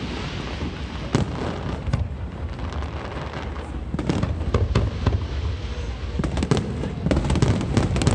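Fireworks display: a run of sharp bangs and crackles over a continuous low rumble of distant booms, coming thicker and faster in the second half.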